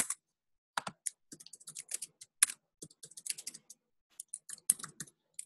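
Typing on a computer keyboard: irregular runs of quick key clicks with a couple of short pauses.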